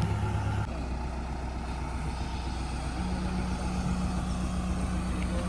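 Heavy diesel engine running steadily with a low, even drone. Its note changes abruptly about half a second in, and a higher steady tone joins about three seconds in.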